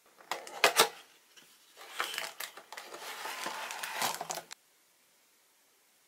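Cardboard candy-kit box and its packaging being handled and opened: a few sharp clicks in the first second, then about two and a half seconds of crinkling and rustling that stops abruptly.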